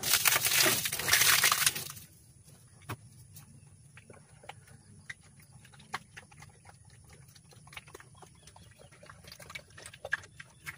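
Wet pig slop of leftover rice porridge poured from a plastic bucket into a trough, a loud pour lasting about two seconds. Then faint scattered clicks and smacks of the pig eating from the trough.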